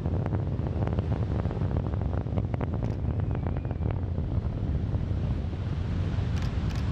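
Deep rumble with crackling from a distant Atlas V rocket launch, heard over wind buffeting the microphone and breaking surf. The crackling is densest in the first few seconds.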